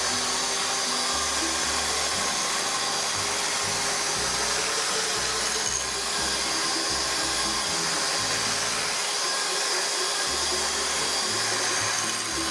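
Electric mixer running steadily, beating a ricotta cheesecake filling, over background music with a bass line.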